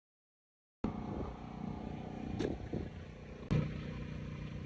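After a moment of dead silence, a steady motor-like hum comes in over a rushing noisy background. It is broken by two brief knocks, about a second apart.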